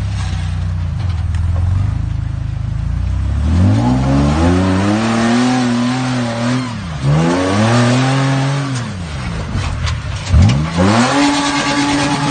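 Rock-crawler buggy's engine running low at first, then revving hard in three long rising-and-falling surges as it claws up a steep rock ledge and tips over backward. Near the end there is a loud bang as the buggy comes down on the rock.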